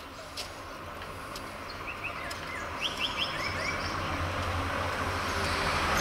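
A car approaching along the street, its noise growing steadily louder, with small birds chirping several times in quick runs of short rising notes.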